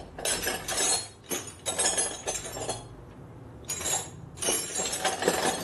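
Metal hand tools and sockets clinking and rattling against each other in several irregular bursts, as a socket is picked out and handled.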